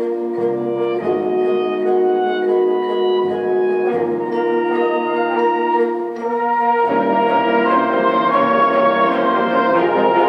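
High school symphonic band playing: held wind chords, then about seven seconds in the fuller band comes in and the music grows a little louder.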